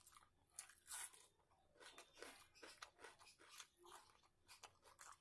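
A person chewing food up close, with faint, irregular crunches and small mouth clicks.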